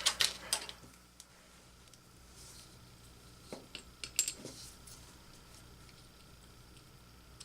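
A few light metal clicks and clinks, scattered and irregular, from small tools and engine parts being handled, over a faint steady hum.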